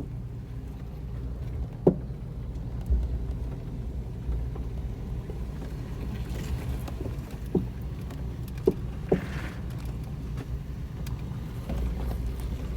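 Off-road truck's engine running steadily at low revs, with several sharp knocks and clicks.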